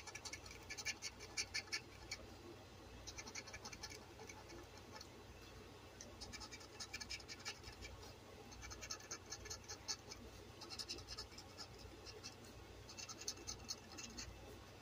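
A penny scratching the coating off a scratch-off lottery ticket: short bursts of quick scraping strokes, about six, with brief pauses between them.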